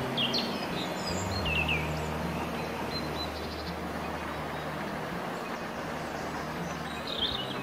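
River water running steadily over stones, with a few short, falling bird chirps: one near the start, a quick run of three about a second and a half in, and one near the end. A low steady drone sits underneath.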